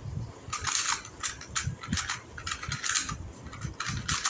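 Two 2x2 puzzle cubes turned quickly by hand during a speed solve: irregular plastic clicks and short scraping rattles of the layers, several a second.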